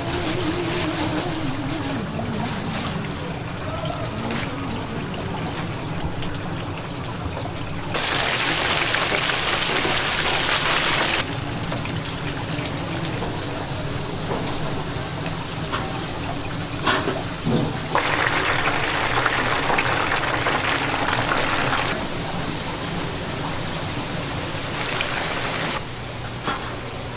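Hot oil sizzling in a deep fryer as battered squid fries: a steady hiss that swells louder twice for a few seconds, with a few sharp clicks around the middle.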